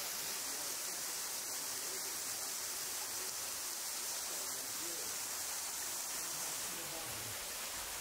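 Steady, even hiss of rushing water from a forest creek and small waterfall, brightest in the high tones and softening slightly near the end.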